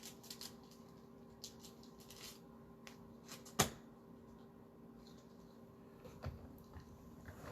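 Trading cards and plastic penny sleeves being handled: faint rustles and small taps, with one sharp click about three and a half seconds in, over a steady faint hum.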